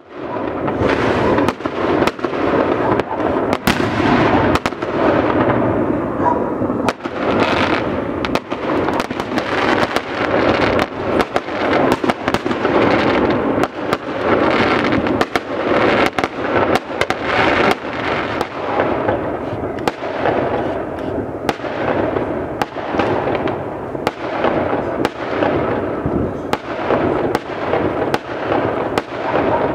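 Many fireworks going off at once: sharp bangs and cracks, one every second or less, over a continuous rumble of more distant explosions.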